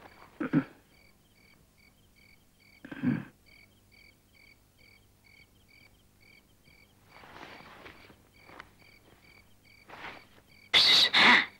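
Crickets chirping steadily, about two chirps a second. A few short noises break in, the loudest a pair of bursts near the end.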